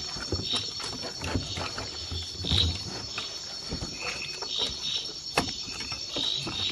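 Steady, high-pitched chorus of crickets and other insects, with scattered short knocks and clicks over it.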